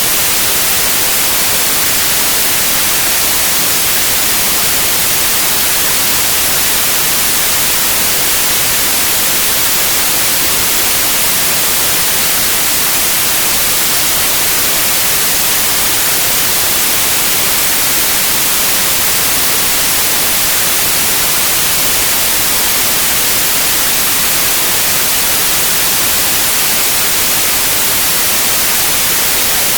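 Steady, loud white noise: an even hiss with no change or events, brightest in the high frequencies.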